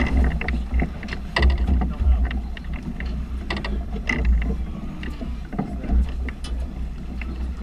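Live sound on board an offshore fishing boat: a steady low rumble with scattered clicks and knocks.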